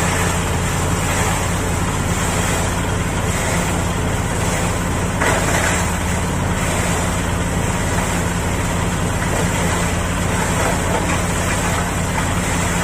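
Plastic crusher machine running steadily, with a constant motor hum under a noisy grinding layer, and a brief louder burst about five seconds in.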